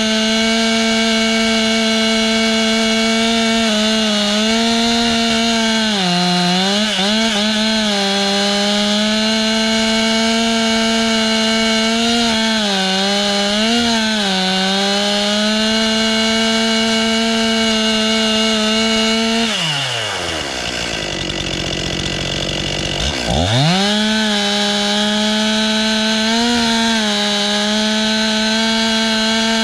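Chainsaw at full throttle milling a log, its pitch sagging briefly several times as the cut loads the engine. About two-thirds of the way through, the throttle is released and the engine falls to a low idle, then revs back up to full speed about three seconds later.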